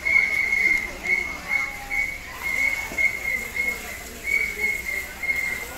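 A high, steady whistling tone sounding again and again in a run of short blasts, two or three a second, with a few short pauses, and faint voices beneath it.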